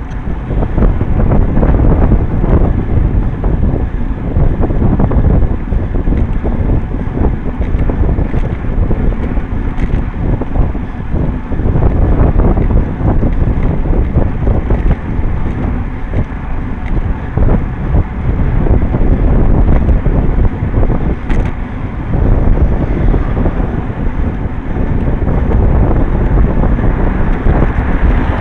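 Wind buffeting the microphone of a camera mounted on a moving road bicycle: a loud, steady rumbling rush with constant flutter.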